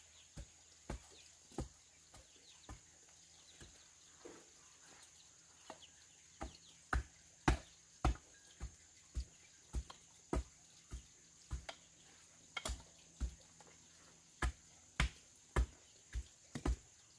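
Repeated sharp strikes of a hand tool working the garden, about two a second. They are softer in the first few seconds and pick up again louder after a short pause.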